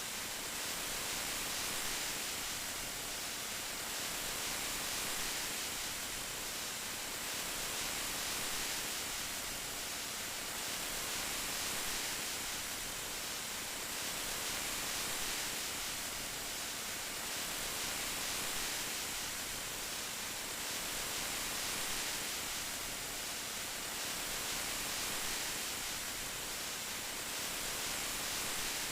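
Steady rain falling, an even hiss that swells gently every two to three seconds.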